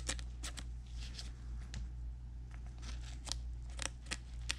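Scattered light clicks and crisp rustles of a trading card being worked into a plastic penny sleeve by gloved fingers, over a steady low hum.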